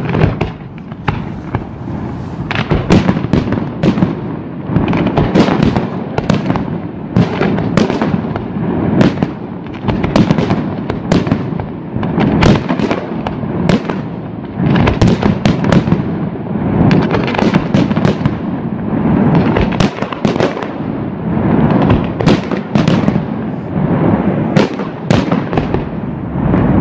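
Aerial fireworks display: shells bursting in rapid succession, the bangs overlapping in a dense, unbroken barrage.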